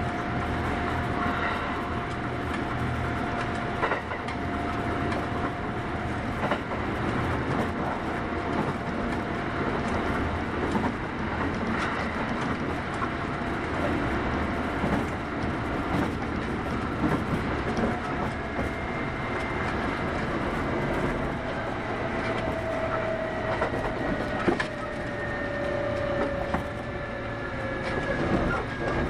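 Kintetsu 8810 series electric train running along the line, heard from inside the car: a steady rumble of wheels on rail with a faint whine that falls slightly in pitch over the last several seconds, and scattered sharp clicks from the rail joints.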